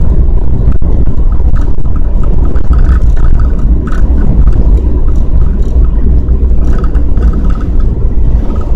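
A vehicle running on the road in gale-force wind, heavily buffeted: a loud, unsteady low rumble of wind on the microphone over the vehicle's running noise.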